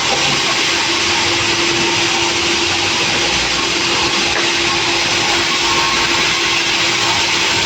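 Sawmill saw running steadily: a loud, continuous rushing noise with a steady hum underneath.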